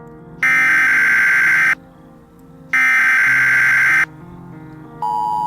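Emergency Alert System SAME header: two bursts of harsh digital data tones, each about 1.3 s with a gap of about a second, announcing a new tornado warning. About 5 s in, the steady two-tone EAS attention signal begins. Background music plays under it.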